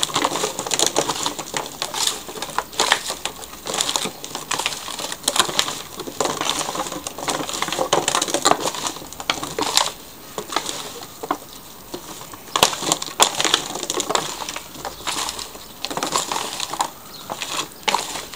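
Hands tossing oiled, spiced slices of sweet potato, potato and onion in a disposable aluminium foil pan: uneven crinkling of the thin foil and soft knocking of the vegetable pieces against it and each other.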